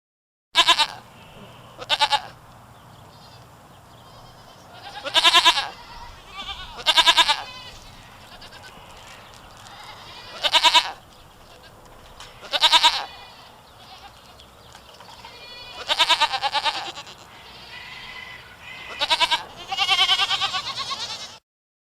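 Goats bleating: about nine separate wavering calls at irregular intervals, the last one drawn out longer than the rest.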